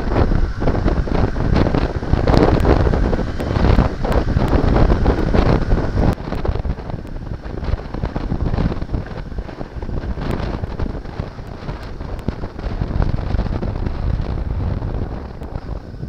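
Wind buffeting the microphone of a camera on a moving Yamaha XT225 motorcycle, with the bike's single-cylinder engine running underneath. The wind noise is heaviest for the first six seconds or so, then eases.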